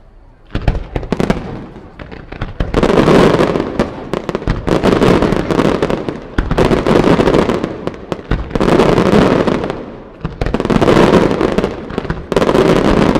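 Fireworks display: a few scattered bangs near the start, then dense volleys of rapid explosions arriving in waves about every two seconds, each wave lasting a second or more.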